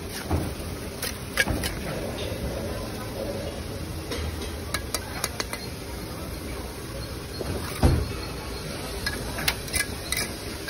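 Steel trowel scraping and clinking in wet mortar as mortar is scooped from a tub and spread onto clay bricks, with bricks set down on the wall. Short irregular clicks and scrapes throughout, and a louder dull knock about eight seconds in.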